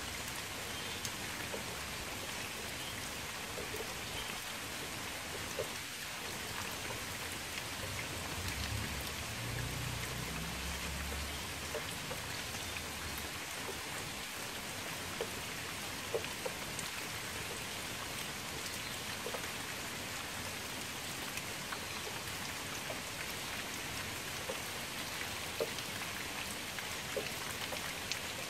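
Steady rain falling on a shallow pool of water: an even hiss of drops with occasional louder single drips. A low rumble passes under it from about eight to thirteen seconds in.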